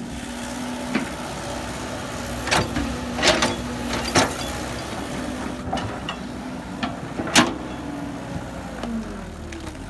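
Excavator engine running steadily, with several sharp knocks and clunks of metal and material, the loudest about seven seconds in.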